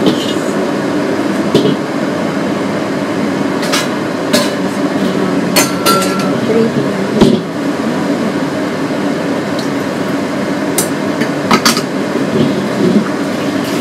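Metal clanks and knocks of a wok, its glass lid and cooking utensils being handled at the stove, a dozen or so sharp ones scattered through, over a steady kitchen hum.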